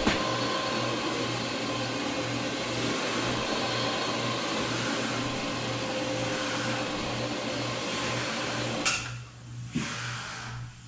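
Carpet-cleaning machine running steadily with a regular pulsing hum, stopping abruptly about nine seconds in.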